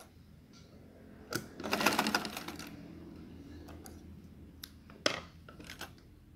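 Black domestic straight-stitch sewing machine stitching a short burst of about a second, a rapid clatter of the needle mechanism, followed by a few separate clicks and a knock as the machine and fabric are handled.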